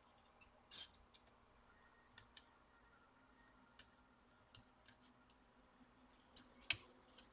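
Light, irregular clicks and taps of small hand tools and parts being handled during laptop repair work, the loudest click near the end, against an otherwise near-silent background.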